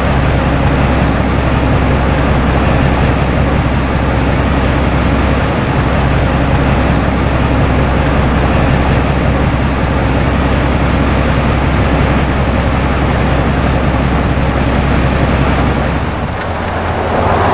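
Railway rotary snowplow working through packed snow: a steady heavy engine drone under the rushing of the spinning rotor throwing snow. The sound dips briefly and the drone changes near the end as the plow goes by.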